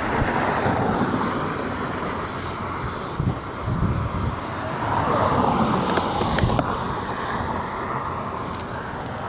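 Road traffic going past on a highway, one vehicle swelling louder and fading about five to six seconds in, with wind buffeting the microphone.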